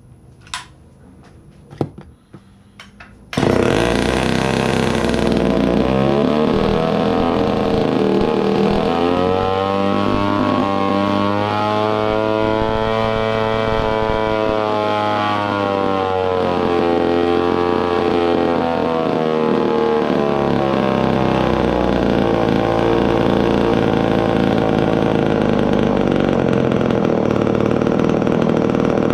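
Poulan 306A two-stroke chainsaw engine starting up about three seconds in after a few clicks, then running loud and continuous, its speed climbing slowly for several seconds and dropping back before holding steady. Freshly rebuilt carburetor not yet tuned: the saw runs but sounds rough, bogging even at idle.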